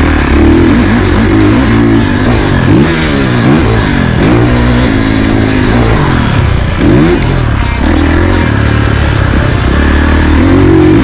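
Dirt bike engine under riding load, its pitch rising and dropping again and again as the rider works the throttle, with background music mixed over it.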